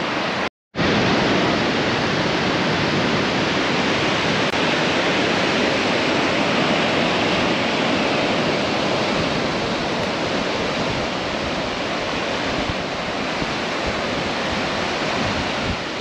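Ocean surf washing up a sandy beach: a steady rush of breaking waves, with breeze across the microphone. It cuts out briefly about half a second in.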